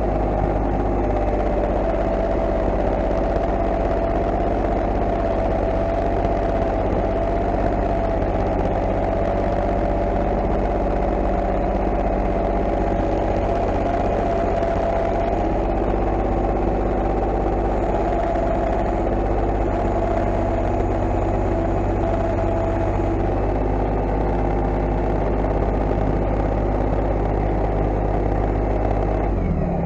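Compact tractor's engine running steadily while the tractor drives carrying a small round hay bale on its front loader, with a whine above the engine note that wavers in pitch.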